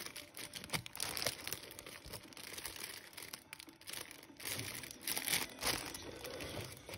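Clear plastic packaging bags and a cardboard box being handled: irregular crinkling and rustling, loudest about five seconds in.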